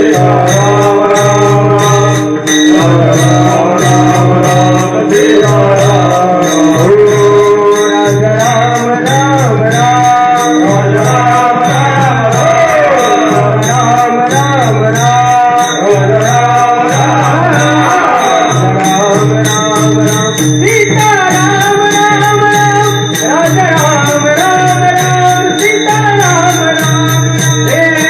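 Devotional kirtan music: a voice sings a winding, wordless melody over steady held tones, with fast jingling hand cymbals and a regular low drum beat underneath.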